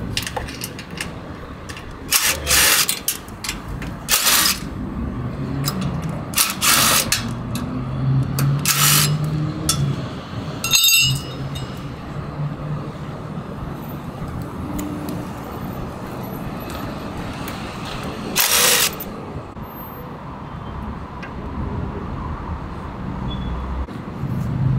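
Cordless DeWalt drill-driver run in about five short bursts, backing out the bolts that hold a motorcycle's front fork to its steel shipping crate. A single metallic clink comes around the middle, over a steady low hum.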